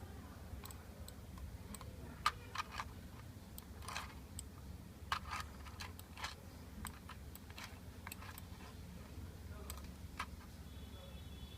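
Irregular clicking of a USB mouse's buttons, about a dozen sharp clicks at uneven intervals with a few louder ones, over a faint low steady hum.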